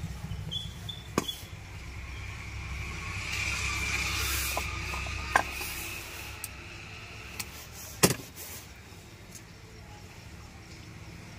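A few sharp clicks and knocks of tools and a small circuit board being handled on a wooden workbench, the loudest about eight seconds in, over a steady low hum and a hiss that swells and fades midway.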